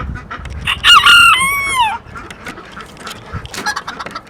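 An Old English Game bantam rooster crowing once, a short high crow of about a second that holds its pitch and then falls away at the end.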